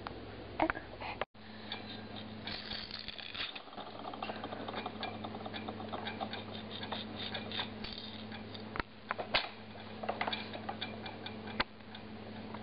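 Irregular light clicking and clattering of the plastic toys on a baby activity saucer as they are moved, with a low steady hum underneath.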